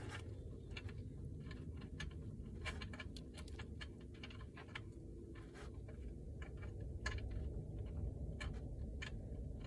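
Faint, irregular small clicks and ticks, a few a second, as an oil drain plug is fiddled by hand into a car's oil pan, over a low steady rumble.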